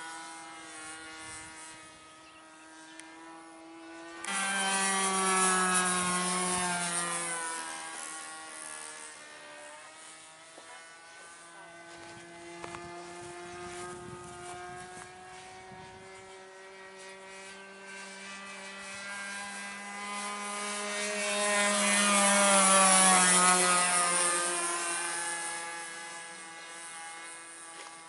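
Evolution 15cc gasoline engine of a radio-controlled model airplane, turning a 13x6 propeller in flight. It buzzes steadily, jumps to a much louder, higher note about four seconds in, then eases back. It swells to its loudest again in a fly-by about twenty-two seconds in, the pitch dropping as it passes.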